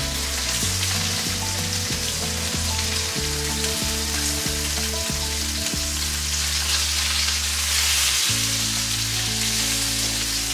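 Skin-on mallard duck breasts sizzling and frying in a very hot pan with olive oil as they are turned over with tongs. The steady sizzle runs throughout.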